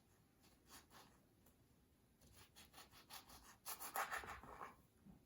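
Faint rubbing and scratching noises, with a short cluster of them about four seconds in, against near silence.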